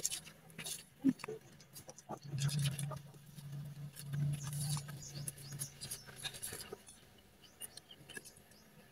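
Small clicks and scrapes of spoons and hands on plates and dishes as people eat at a plastic table, irregular and quiet. A faint low hum runs for a few seconds in the middle.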